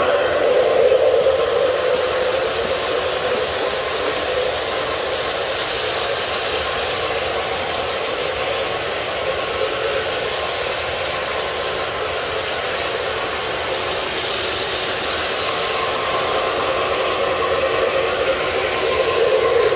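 Several O-gauge model trains running at once on three-rail track: a steady rolling rumble of wheels and motors. It swells near the start and again near the end as a train passes close by.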